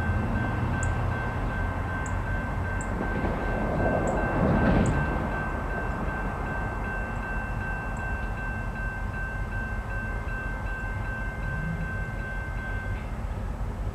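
Distant diesel locomotive running light, with no cars, as it approaches: a low steady engine rumble with a steady high whine over it that stops near the end. About four to five seconds in there is a brief swell of louder noise.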